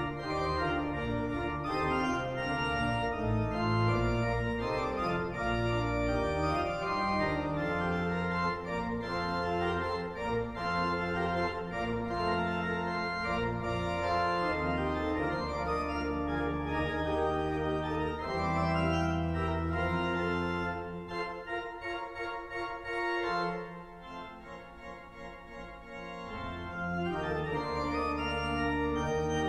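Church pipe organ playing, with chords over deep held bass notes. About three-quarters of the way through it goes quieter and the bass drops out for a few seconds, then the full sound returns near the end.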